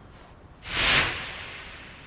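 A single whoosh sound effect that swells up about half a second in, peaks near one second, and fades away over the following second.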